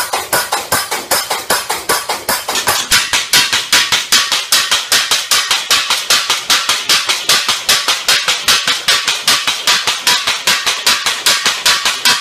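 Homemade budget power hammer running on its first test: the ram beats down on the anvil die in a fast, even train of metal clanks at about five blows a second, a little louder from about three seconds in.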